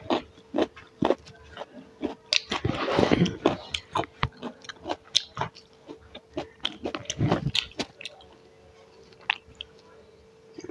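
Close-miked chewing of food, with many short, sharp mouth clicks that thin out to only a few in the last couple of seconds.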